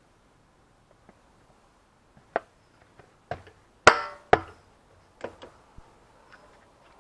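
Scattered knocks and clicks of parts being handled while a motorcycle fuel tank is fitted back on. The loudest is a pair of sharp knocks about four seconds in, the first ringing briefly.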